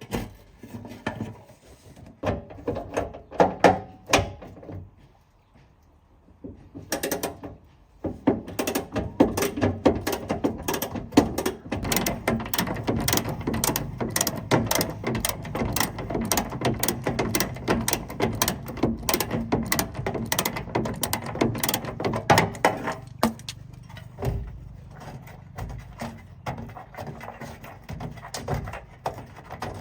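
Mechanic's tool working on metal truck parts: a few scattered knocks and clinks, then about fifteen seconds of rapid, continuous ratcheting clicks over a low steady hum, easing off into occasional knocks near the end.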